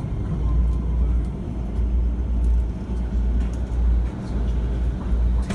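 Keikyu new 1000 series (1800 subgroup) electric train running, heard inside the lead car: a steady low rumble of wheels on track that swells and eases slightly.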